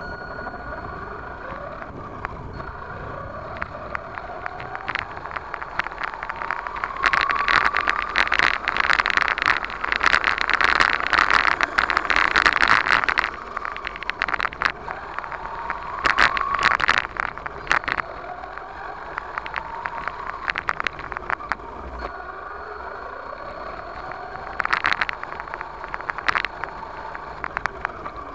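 A 1/10 scale RC monster truck's motor whines up in pitch several times as it accelerates. Its tyres and chassis make a crackling, rattling noise over the dirt, loudest in the middle and again briefly later.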